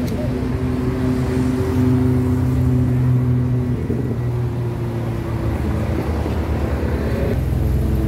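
Ferrari sports-car engine running at low, steady revs as the car moves slowly off, the note dipping slightly partway through. The engine note changes a little before the end.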